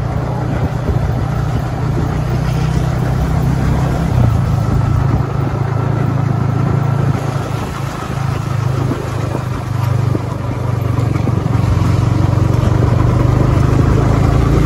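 Yamaha R15 V3's 155 cc single-cylinder engine running steadily while the motorcycle is ridden, getting a little louder in the last few seconds.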